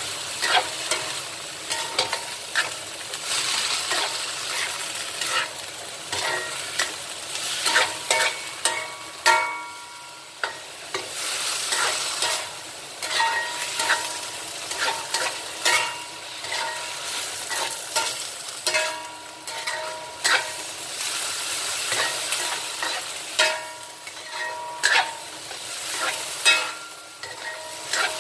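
Leafy greens sizzling as they stir-fry in a stainless steel wok, turned continuously with a wooden spatula. The spatula gives frequent sharp knocks and scrapes against the pan over a steady hiss.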